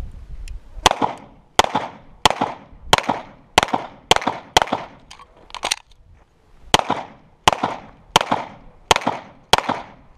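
A string of pistol shots fired in competition pace, about one every two-thirds of a second, each with a short echoing tail. There is a pause of about a second midway through the string.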